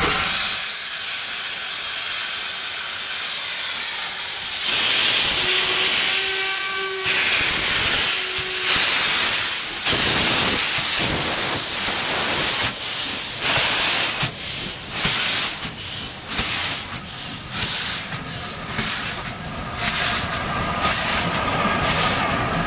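Class B1A No. 251 steam locomotive passing slowly, steam hissing loudly from its cylinder drain cocks. From about ten seconds in, rhythmic exhaust beats join the hiss as the engine and its coaches roll by.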